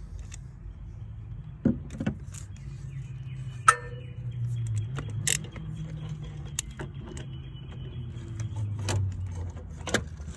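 Metal tool clinks and sharp knocks as a 13 mm socket on a swivel and extension is worked down onto a bolt, over a steady low hum.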